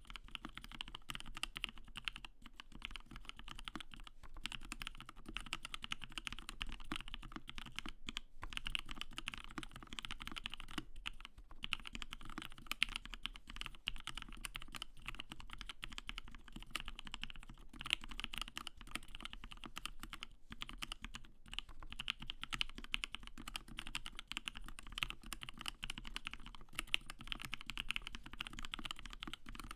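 Continuous fast typing on a 60% mechanical keyboard with lubed Gateron Ink linear switches, an acrylic plate and ePBT keycaps. It makes a dense, steady stream of key clacks, with a few louder strokes here and there.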